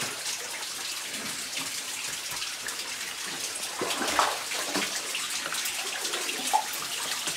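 Steady running and splashing of a shallow river's water.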